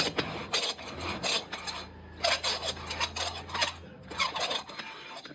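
Hand-turned valve seat cutter rasping against the valve seat of a new Eicher NC cylinder head as the seat is cut, in quick back-and-forth strokes. The strokes come in three runs, with short pauses about two and four seconds in.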